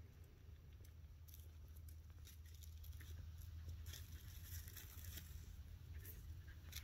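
Faint, irregular crunching footsteps, several soft crunches a second apart, over a low steady rumble.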